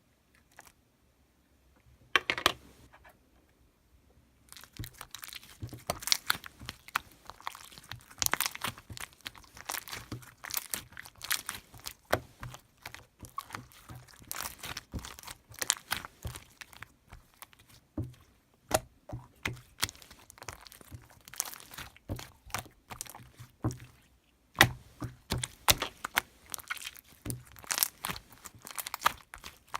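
Irregular crinkling and crackling handling noise, dense runs of sharp clicks with short pauses, the first loud snaps about two seconds in.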